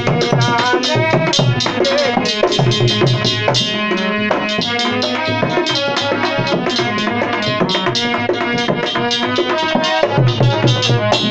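Instrumental interlude of a Hindi Shiva bhajan: a fast, dense drum rhythm under a melody line, with no singing.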